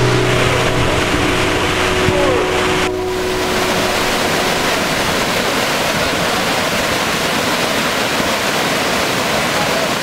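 Stream water rushing and cascading over rocks in a steady, loud hiss. Faint music tones die away about three seconds in.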